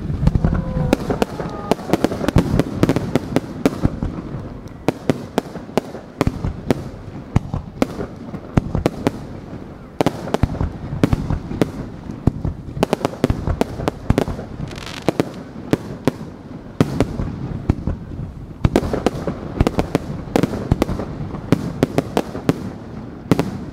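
Fireworks display going off continuously: a dense run of sharp cracks and bangs from ground-fired fountains and bursting aerial shells, with a brief whistle in the first couple of seconds.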